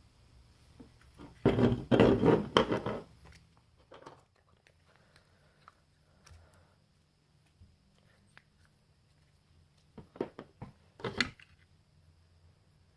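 Plastic Play-Doh mold and tools being handled: a rustling, scraping stretch about a second and a half in, scattered light clicks, then a few sharper plastic clacks near the end.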